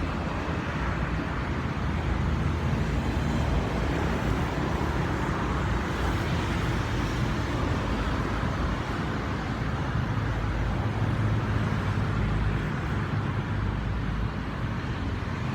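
Steady road traffic noise, a continuous low rumble and hiss from passing vehicles.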